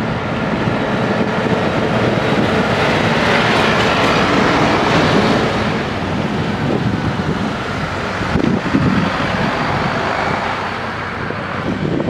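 Backhoe loader's diesel engine running steadily, mixed with the noise of road traffic passing close by.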